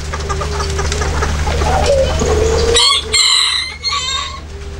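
Bantam rooster crowing about three seconds in: a short, high crow in two parts, after low clucking from the cocks in the cage. A steady low hum runs underneath.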